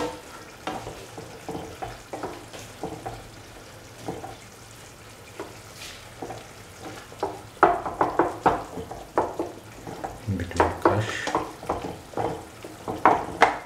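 A cooking utensil stirring chopped bottle gourd and tomato in a pan with water, scraping and knocking against the pan. The strokes are soft at first and become sharper and louder from about halfway through.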